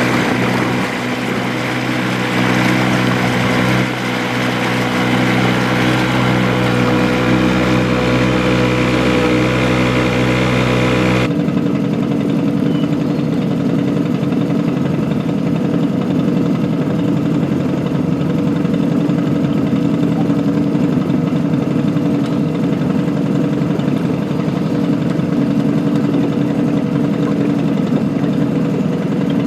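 An engine running steadily. About eleven seconds in, its sound changes abruptly to a rougher, lower note.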